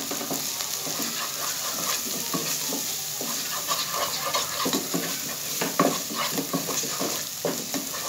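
Onion, tomato and spice masala frying in oil in a pot, sizzling steadily, with a spatula repeatedly scraping and stirring it across the pan bottom. This is the bhuna stage, where the masala is fried down with the freshly added ground spices.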